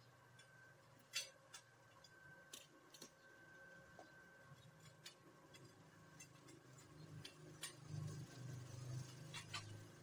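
Near silence: faint background ambience with a few scattered light clicks and a low rumble that grows over the last few seconds.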